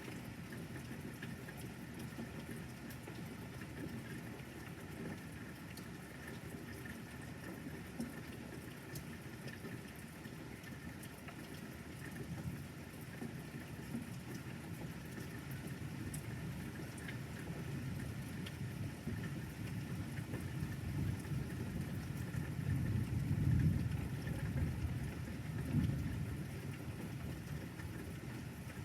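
Steady rain falling, with scattered drop ticks. A low rumble of thunder builds about two-thirds of the way through, peaks, then fades near the end.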